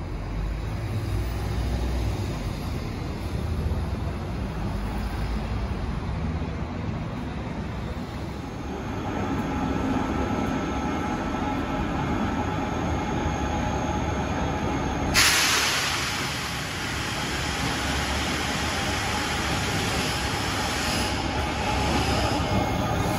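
A train running at a railway station, steady rumble with a faint whine coming in about a third of the way through. Just past halfway a sudden hiss starts and carries on.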